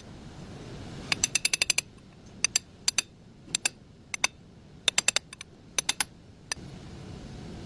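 Sharp metallic taps from a hammer striking a 1/2-inch drive extension that is used as a drift to drive a new axle seal into its bore. First comes a quick run of about eight light taps, then single and paired taps every half second or so.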